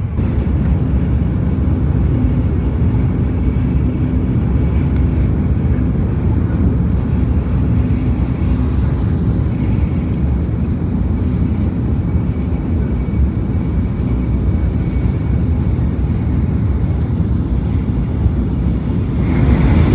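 Shinkansen bullet train running at high speed, heard from inside the passenger car: a loud, steady rumble of wheels, track and air.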